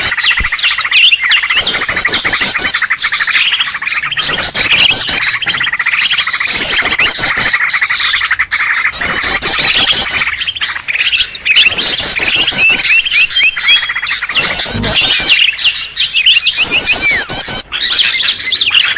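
A loud, busy stream of green leafbird (cucak ijo) calls and chirps, with bursts of fast, high trilled phrases every few seconds: an agitated 'ribut' lure call used to draw wild leafbirds in.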